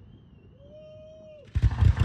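A short quiet lull with only faint thin whistling tones, then about one and a half seconds in a firework goes up with a sudden loud rushing, crackling noise.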